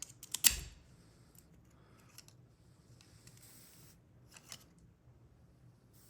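A few sharp small metallic clicks from a Ford door lock cylinder and its tumbler wafers being handled while it is recoded. The loudest come about half a second in, followed by a few faint ticks.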